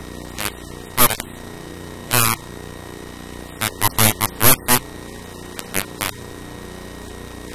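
A voice speaking in short, broken bursts over a steady electrical hum and hiss.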